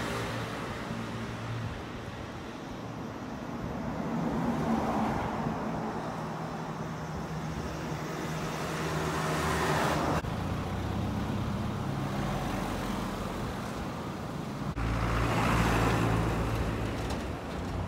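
Street traffic: cars passing by, three times swelling and fading, over a steady low engine hum.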